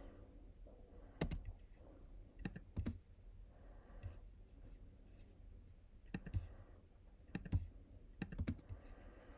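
Scattered sharp clicks from a computer mouse and keyboard, a dozen or so spread irregularly over several seconds.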